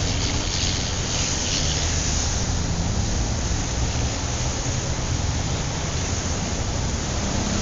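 Steady wind noise rushing over a small camera's microphone while riding a bicycle along a road.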